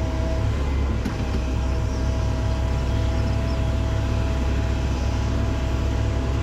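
Heavy earthmoving machinery engine running steadily with a deep, constant rumble and a steady hum, with a brief click about a second in.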